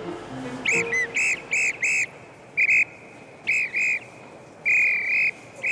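Railway platform dispatchers' pea whistles sounding a string of short, shrill, trilling blasts, then a longer blast near the end. This is the signal that a train's doors are about to close for departure.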